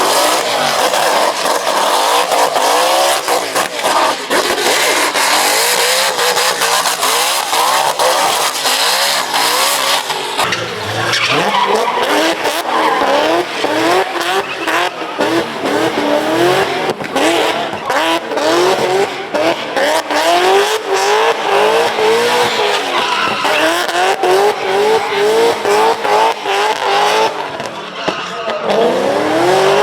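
Burnout car with its engine held at high revs, the revs surging up again and again in quick short rises, over the continuous screech of spinning tyres.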